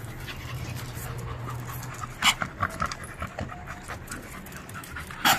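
Dogs panting close by in the heat, with a few brief sharp sounds about two seconds in and again near the end.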